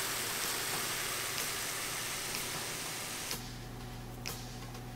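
Deer breakfast sausage frying in a stainless steel skillet, a steady sizzling hiss with faint pops. About three seconds in it stops abruptly, leaving a low electrical hum and a single click.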